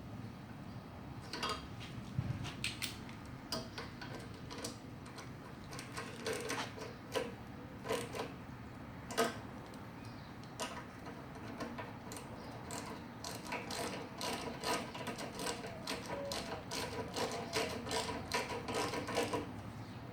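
Irregular metallic clicks and ticks of hand tools working on a lawnmower carburetor as it is refitted, coming thicker near the end.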